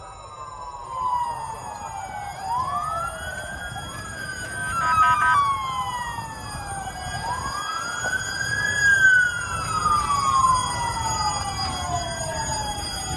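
Several emergency vehicle sirens wailing at once and overlapping, each sweeping quickly up in pitch and then falling slowly, cycle after cycle. About five seconds in there is a short stretch of rapid pulsing.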